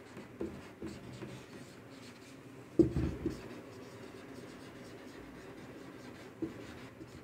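Marker pen writing on a whiteboard, faint strokes of the tip across the board, with one short, louder thump nearly three seconds in.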